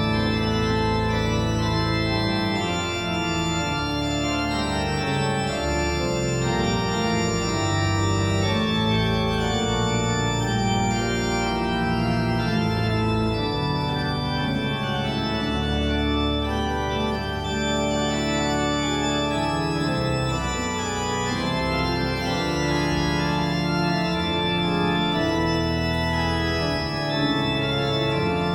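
Organ playing slow, sustained chords with a held bass line.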